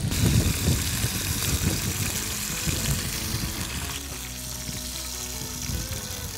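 Antelope heart frying in hot oil in a small frying pan, a steady sizzle that is strongest for the first four seconds or so and then fainter. Background music plays under it.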